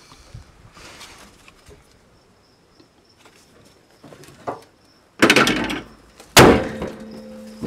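Car bonnet slammed shut about six seconds in: one loud metal bang that keeps ringing briefly afterwards. A shorter, noisy clatter about a second earlier comes as the bonnet is brought down.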